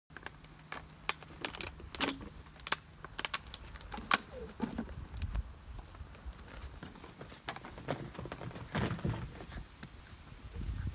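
Irregular sharp clicks, taps and rustling from golden retriever puppies moving about and playing, over a low rumble.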